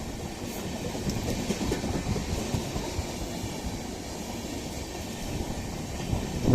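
Passenger train of LHB coaches rolling past, its wheels knocking irregularly over the rails, with a sharper knock near the end. No horn is sounding.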